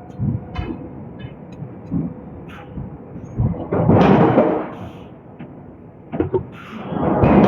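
Hydraulic forging hammer working steel billets: short thuds and knocks, with two longer, loud rushing surges, one about four seconds in and one near the end.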